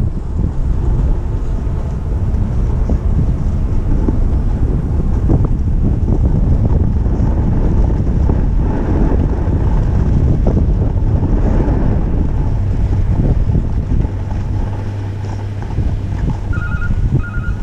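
Wind buffeting an action camera's microphone while riding down a groomed ski run, a steady loud rush. About a second before the end, a vehicle's reversing beeper starts, short evenly spaced beeps.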